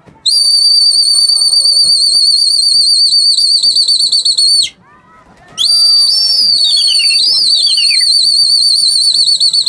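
Trilling pea whistle blown by a pigeon fancier to the flock in flight: two long, high, warbling blasts with a short gap between them. Falling whistle glides cross the second blast.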